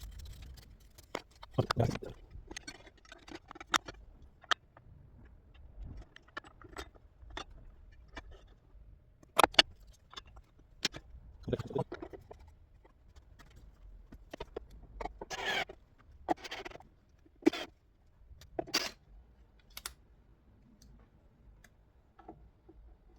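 Scattered clicks, knocks and a few scrapes of metal parts and hand tools being handled while a chop saw is put back together, with the loudest knocks about 9 to 10 seconds and 17 to 19 seconds in.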